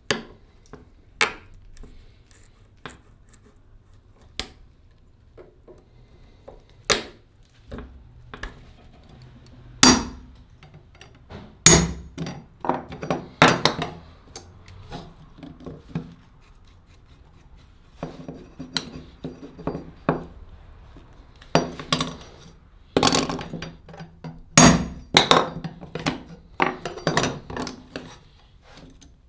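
Hammer and metal tools knocking and clinking on an old cleaver as its broken handle is taken apart: irregular sharp strikes, single at first, then quick runs of blows in the middle and toward the end.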